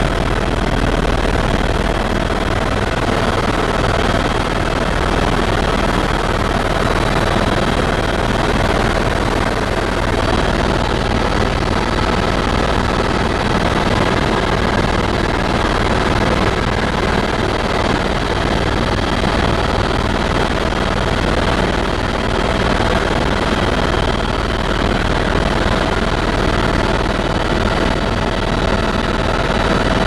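Helicopter engine and rotor running steadily, heard from inside the cabin: a constant drone with a few faint steady tones above it.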